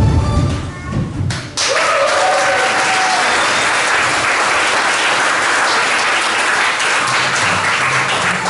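The children's song and its music end just after a second in. Then the audience breaks into steady applause in a large hall.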